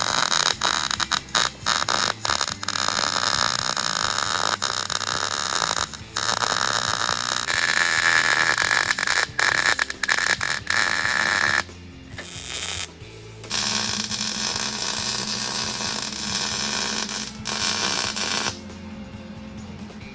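MIG welder arc crackling and hissing in bursts as gas-shielded tack welds are laid on steel, stopping briefly between tacks and dropping away near the end.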